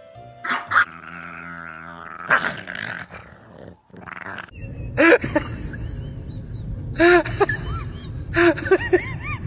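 Dogs play-fighting: short sharp dog sounds early on, then a steady low growl from about halfway through, broken by short high yips about five seconds in, again at about seven seconds, and several in quick succession near the end.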